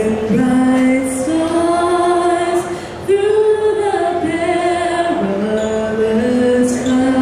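A solo voice singing a slow melody of long held notes, with no beat or percussion.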